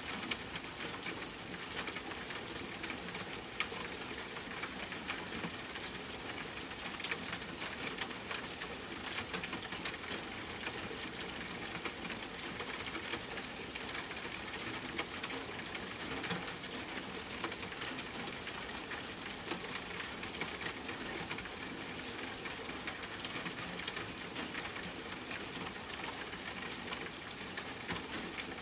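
Steady rain falling, with a dense even hiss and many separate drops ticking sharply on a hard surface.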